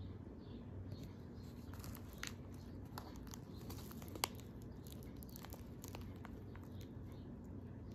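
Clear plastic treat bag crinkling as it is handled, in scattered small crackles over a low steady hum.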